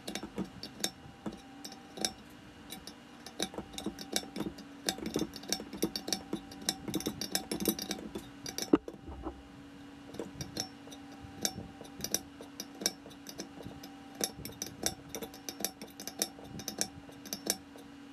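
Metal clicks and clinks from a wrench turning a wound-up seal insertion tool, pressing an inner axle tube seal into a Dana 30 axle housing, with one sharper click about nine seconds in. A steady low hum runs underneath.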